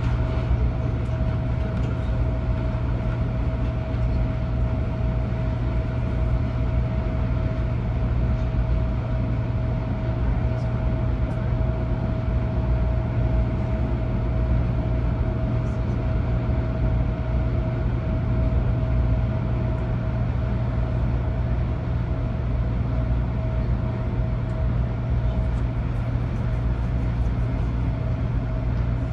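Cabin noise of an MTR Airport Express Adtranz-CAF A-Train running at speed: a steady deep rumble of wheels on rail with one steady tone above it, which fades away near the end.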